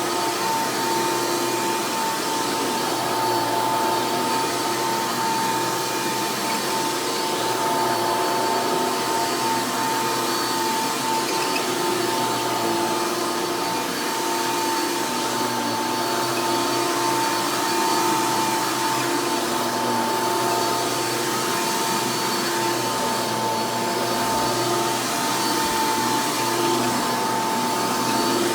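Hoover Elite upright vacuum cleaner, rebuilt from the parts of several Hoover models, running steadily with a steady whine over its motor noise.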